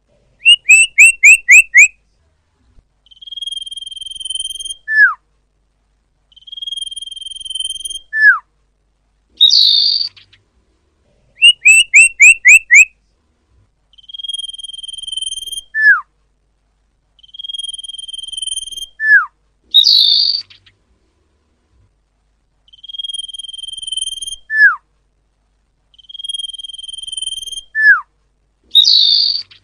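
Sirpu (sirdung) bird song played as a lure, repeating in a regular cycle. Each cycle has a short falling whistle, a quick run of about five chirps and long steady high notes, with a harsh rasping burst about every ten seconds.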